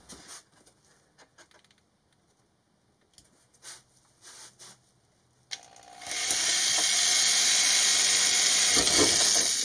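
Electric drill starting up about six seconds in and running steadily as it bores a hole through a fabric-covered wall panel. Before that, only a few faint clicks.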